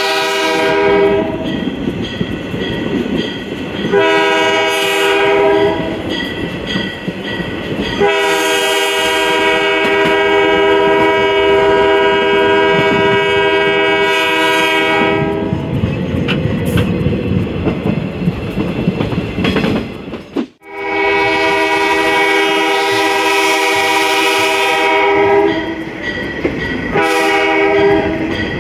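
Multi-note diesel locomotive air horn on 4212 blowing a crossing sequence. A long blast ends about a second in, then come a short blast, a long blast of about seven seconds, another long one after a pause, and a short one near the end. Between blasts the wheels clatter over rail joints under a steady running rumble.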